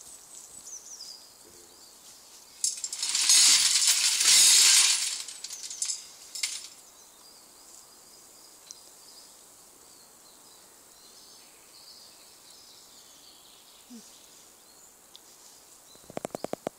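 A metal clatter device for a dog's startle test is set off suddenly: a loud jangling metallic clatter about three seconds in, lasting some two seconds before it dies away.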